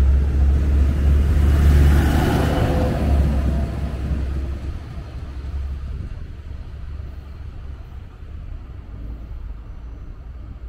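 DB Class 643 (Bombardier Talent) diesel multiple unit departing and passing close by: a low diesel engine rumble with wheel-on-rail noise that peaks about two seconds in, then fades as the train pulls away down the line.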